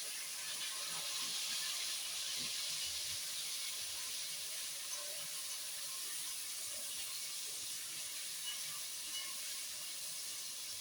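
Chicken and freshly added vegetables sizzling as they fry, a steady hiss that slowly dies down.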